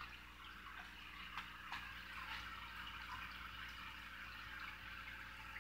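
Faint steady splashing and gurgling of an aquarium's return water jetting from PVC outlets and churning the tank surface, with a low hum underneath. Two small clicks come about a second and a half in.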